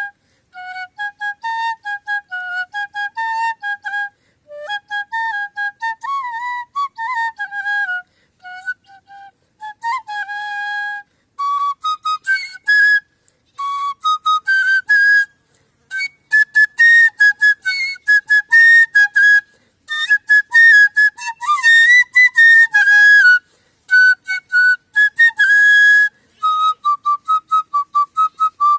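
Homemade bamboo side-blown flute (bansuri) playing a solo song melody, phrase by phrase with short breath pauses. About eleven seconds in the tune moves up to a higher, louder and breathier register.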